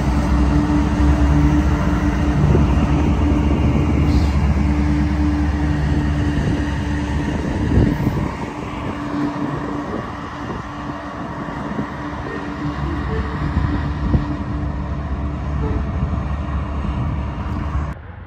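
A CSX freight train of tank cars passing, its diesel locomotives running with a steady drone and low rumble. About eight seconds in the sound changes abruptly to a quieter, even rumble of engines and rolling wheels.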